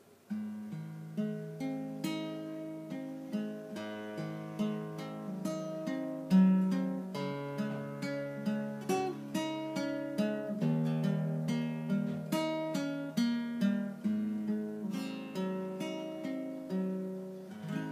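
Nylon-string classical guitar played solo, a steady run of plucked notes and chords with no voice. It comes in suddenly just after the start.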